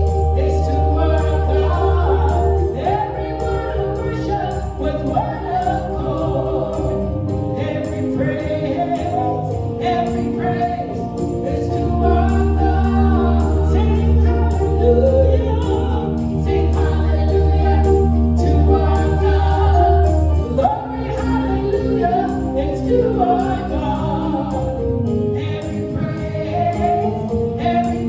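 Gospel choir singing a worship song over a band, with tambourine jingling and a heavy sustained bass.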